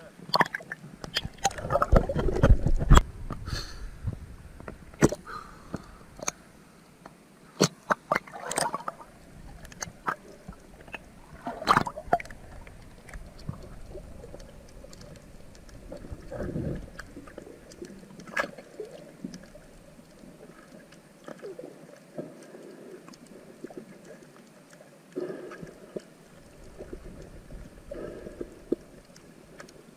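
Water splashing and gurgling, with scattered sharp clicks and knocks, busiest in the first dozen seconds.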